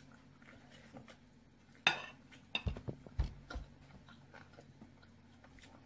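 Metal fork and knife set down on a ceramic plate: one sharp ringing clink about two seconds in, followed by a few dull knocks and small clicks.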